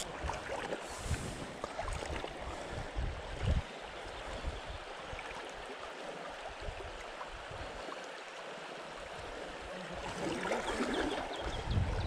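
Shallow river flowing over a stony bed: a steady rush of water, with a few low bumps on the microphone.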